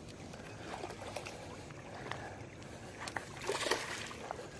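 A hooked bass splashing at the water's surface as it is reeled in, with a louder splash about three and a half seconds in.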